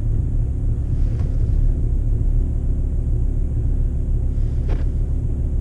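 VW Touareg 2.5 TDI five-cylinder diesel idling steadily with a low rumble just after a cold start, while it is still smoking. The owner puts the cold-start smoke down to old, worn glow plugs.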